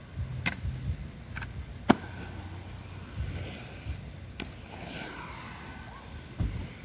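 Inline skate wheels rolling on pavement with a low rumble, broken by several sharp clacks, the loudest about two seconds in, and a dull thump near the end.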